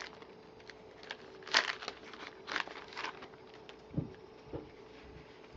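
Baseball trading cards being slid off the stack and handled one by one: a few short papery swishes, then two soft taps, over a faint steady hum.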